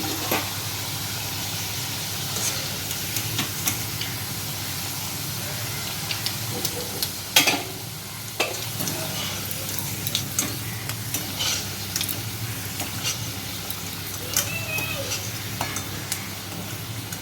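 Potatoes frying in hot oil in a kadai, sizzling steadily, with clinks and scrapes of a utensil against the pan as the browned pieces are stirred and lifted out. One sharp clink stands out about seven seconds in.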